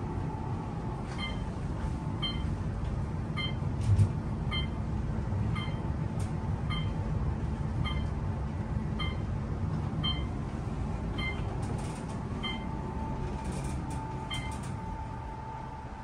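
Modernized Otis elevator car travelling between floors: a steady low rumble with a light regular ticking just under twice a second. There is a small knock about four seconds in, and a faint steady tone joins near the end.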